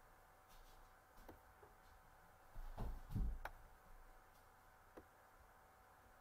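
Quiet room tone with a faint steady hum, a few light clicks, and a pair of soft low thumps about three seconds in.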